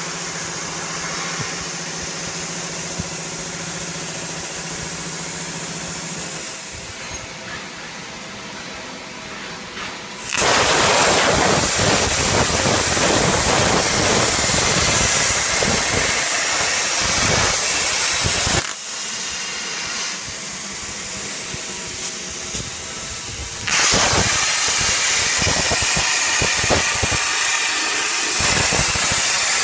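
Plasma cutting torch on a portable CNC gantry cutting steel plate: a loud, steady hiss of the arc and its air jet starts suddenly about a third of the way in, cuts off abruptly after about eight seconds, and starts again a few seconds later. Before the first cut there is a quieter steady hum.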